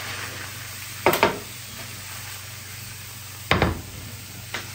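A thin crepe sizzling faintly in a non-stick frying pan, with knocks of the pan as it is tossed to flip the crepe. There is a pair of knocks about a second in, and a heavier knock about three and a half seconds in as the pan comes back down on the glass hob.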